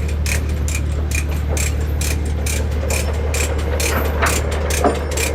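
Regular mechanical ticking, a little over two clicks a second, over a steady low hum.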